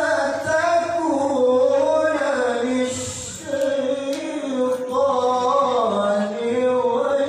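A man reciting the Qur'an in the melodic, ornamented tilawah style into a handheld microphone. He holds long notes whose pitch waves up and down, and the phrase begins suddenly right at the start.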